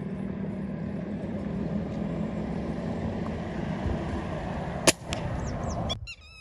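A single sharp air rifle shot about five seconds in, over a steady low rumble. The rumble cuts off abruptly near the end, leaving quieter open-air sound with birds chirping.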